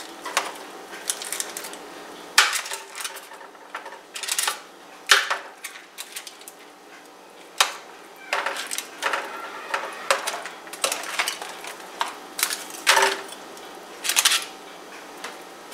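Metal kitchen tongs clicking and scraping against a foil-lined baking pan and crinkling the foil as chicken drumsticks are turned over, in irregular clacks every second or so.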